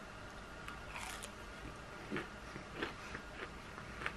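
Faint crunching of a person biting into and chewing a crispy breaded chicken strip: a few soft, short crunches spaced about half a second to a second apart.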